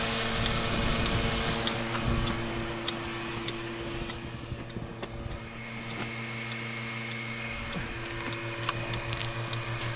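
A milking machine's vacuum pump runs with a steady hum while the last of the milk is drawn from the cow, near the end of milking. Faint ticks sound now and then.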